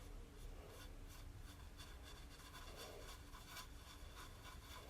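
Faint, soft strokes of a paintbrush dabbing paint onto a wooden birdhouse, over a low steady room hum.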